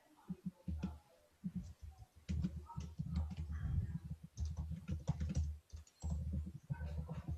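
Typing on a laptop keyboard: irregular runs of keystrokes with a couple of short pauses.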